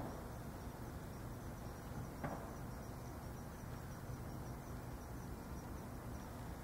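Outdoor background noise: a steady low rumble with a faint, high chirp repeating about three times a second, and a single light tap about two seconds in.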